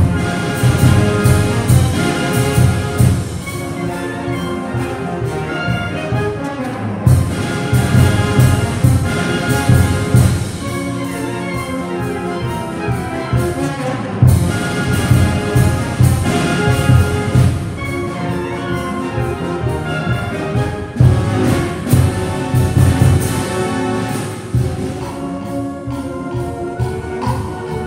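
A student concert band playing: clarinets, flutes, saxophones and brass in sustained chords over a regular pulsing bass line, the full band swelling louder and dropping back in turns every few seconds.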